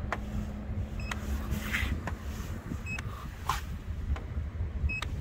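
Soft clicks about once a second, some with a short high beep, from a handheld paint-thickness gauge taking readings against car bodywork, over a steady low rumble of wind on the microphone.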